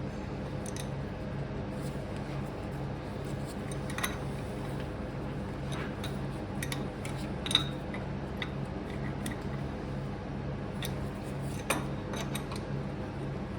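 Scattered light metallic clicks and clinks of hand tools on engine parts, the sharpest about a third of the way in, near the middle and near the end, over a steady low hum.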